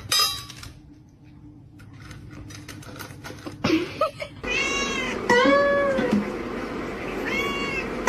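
Domestic cat meowing: a short call at the start, then, after a few soft knocks, three long drawn-out meows that rise and fall in pitch in the second half.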